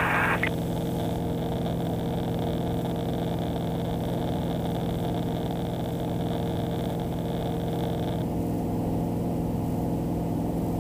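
Tecnam P2010 light aircraft's piston engine and propeller droning steadily in flight, heard from inside the cockpit.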